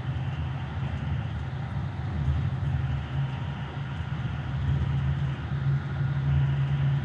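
Keikyu 1000-series electric train running on elevated track, heard from inside behind the driver's cab: a steady low rumble of wheels on rails and running gear, growing a little louder in the second half.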